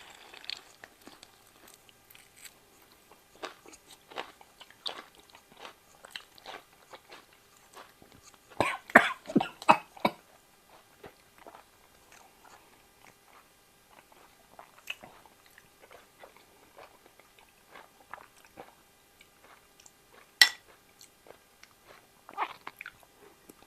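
Close mouth sounds of a person biting and chewing raw beef liver: sparse wet clicks and smacks, with a louder flurry of chewing about nine seconds in and one sharp click near twenty seconds.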